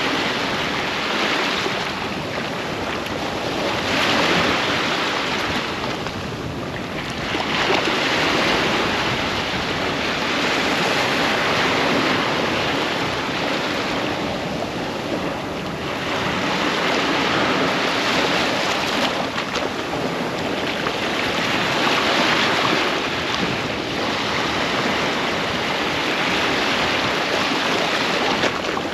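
Ocean surf washing onto a beach: a steady rush of breaking waves that swells and eases every few seconds.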